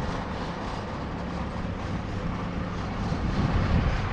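An engine running steadily at idle, with a low, even hum; it grows a little louder and rumblier near the end.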